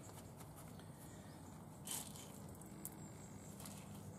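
Faint handling sounds of a bait bag of pellets being worked by hand and filled with a small scoop, with one short sharp rustle about two seconds in, over a low steady hum.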